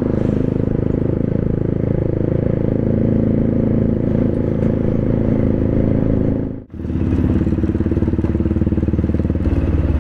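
Motorcycle engine running steadily through a loud exhaust while riding, with a brief dropout about two-thirds of the way through.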